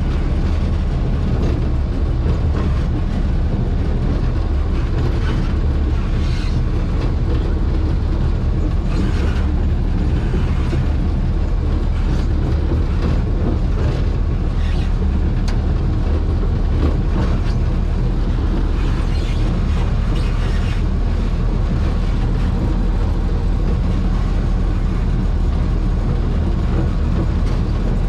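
Cummins HBI-600 naturally-aspirated 11-litre six-cylinder diesel engine of a 1949 General Electric diesel-electric locomotive running steadily, with occasional light clicks and creaks.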